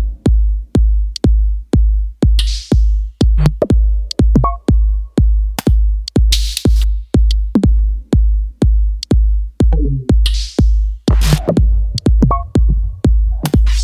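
Electronic dance music with a steady kick drum about two beats a second and a swishing sweep about every four seconds.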